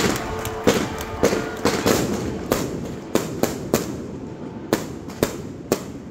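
Aerial firework shells bursting overhead in a rapid, irregular series of sharp bangs, about two a second, the loudest right at the start. Between the reports a rumbling wash of the bursts slowly dies down.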